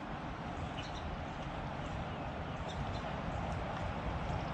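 Steady rush of flowing creek water with a low rumble underneath, and a few faint short ticks scattered through it.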